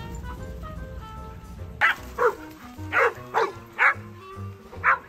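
Dogs barking: after a couple of seconds, about six short, sharp barks, each falling in pitch, over background music with held notes.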